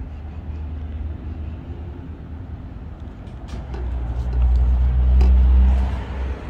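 A road vehicle passing close by: engine and road noise build to a peak about four to five seconds in and die away, over a steady low rumble.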